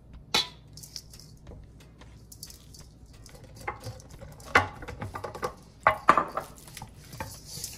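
Hands sprinkling and rubbing dry seasoning into a whole salmon in a stainless steel mixing bowl: a soft rustle, broken by several sharp knocks and clinks against the metal bowl. The loudest knocks come about four and a half and six seconds in.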